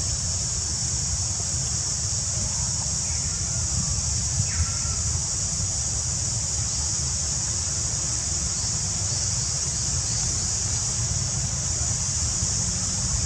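Steady, high-pitched insect chorus, with a low rumble underneath and a couple of faint short squeaks about four seconds in.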